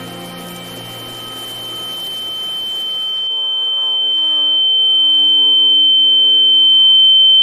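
A steady high-pitched ringing tone that swells steadily louder, a tinnitus-like ringing in the ears standing for hearing loss. Music fades out under it, and about three seconds in a muffled, wavering voice comes in beneath the ringing.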